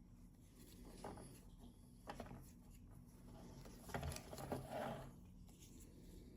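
Faint clicks and rustling of plastic alarm-panel parts being handled, a few isolated clicks first and then a busier run of clicks and scraping about four seconds in.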